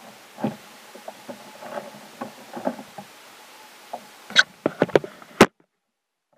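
Soft knocks from movement in a kayak, then a quick run of loud, sharp clicks and knocks as a hand handles the camera close to the microphone, after which the sound cuts out abruptly.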